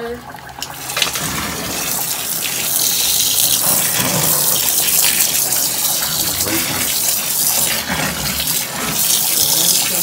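Water running from a hose into the wash tub of a Kuppet twin-tub portable washing machine, splashing onto wet clothes. The flow starts about a second in, swells over the next couple of seconds and then runs steadily.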